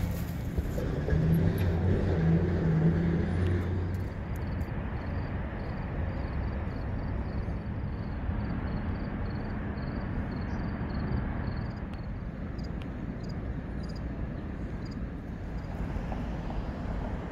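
Outdoor town street ambience with road traffic going by: a steady wash of vehicle noise, with a louder low engine hum from a passing vehicle in the first few seconds.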